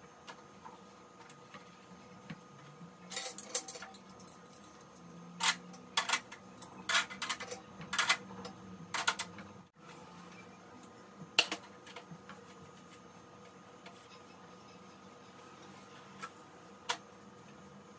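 Metal pots, pans and utensils clinking and clattering as they are picked up and set down at a gas stove: a run of a dozen or so sharp knocks, then only the odd one later.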